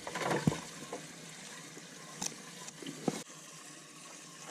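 Water splashing and trickling, with a few short light knocks.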